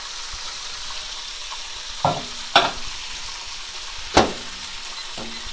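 Chicken pieces frying in a pan of hot oil, a steady sizzle, with three sharp knocks between about two and four seconds in.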